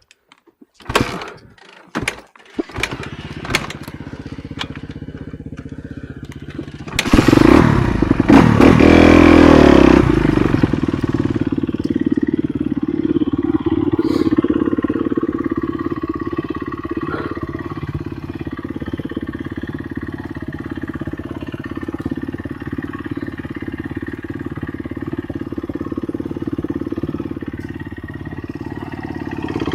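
Enduro motorcycle engine: a few knocks, then it starts and is revved loud for a few seconds, then settles to a steady run.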